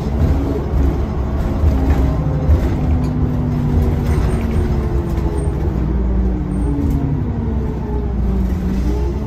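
Orion VII diesel city bus driving, heard from inside the passenger cabin: a steady low engine rumble with engine and drivetrain tones that drift up and down in pitch.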